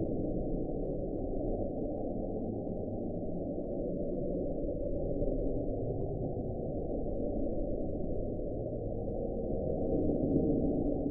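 Underwater hydrophone recording of the 'Bloop': a low, steady rumble with faint scattered clicks over it, swelling slightly near the end. The sound is officially attributed to an iceberg breaking up.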